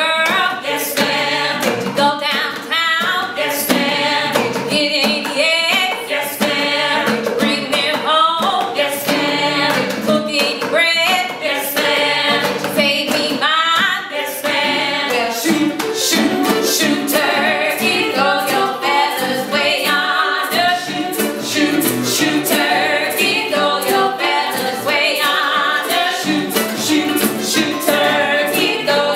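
A small group of men's and women's voices singing a call-and-response children's song, a lead voice answered by the group, over strummed mandolin, ukulele and acoustic guitar.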